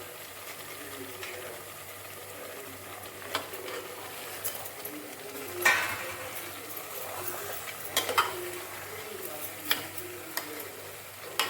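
Mutton frying in oil and masala paste in a pan, sizzling steadily while it is stirred, with several sharp clinks of the spoon against the pan.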